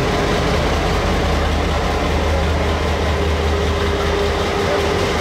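Train engine running steadily: a low drone with a constant higher tone above it.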